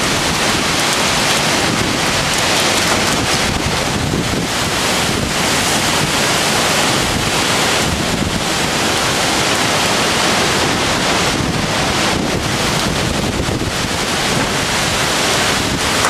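Violent windstorm with heavy rain: a loud, steady rush of wind and driving rain, swelling slightly in gusts, with wind buffeting the microphone.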